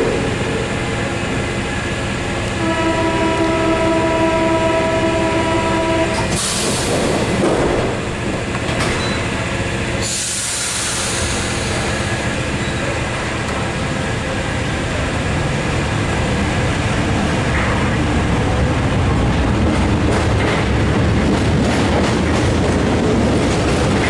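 MF67 Paris Métro train at a station: a steady door-closing buzzer sounds for about three and a half seconds, then a burst of air hiss as the doors shut. A second hiss comes about ten seconds in, and the motors and wheels build up as the train pulls out and runs into the tunnel.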